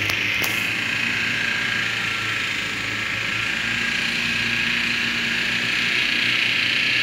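Land Rover Defender engine running steadily as it drives slowly through mud, a low hum under a steady high hiss, with a single sharp click about half a second in.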